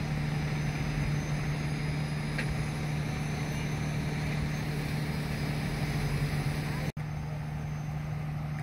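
An engine idling with a steady low hum. The sound drops out for an instant about seven seconds in.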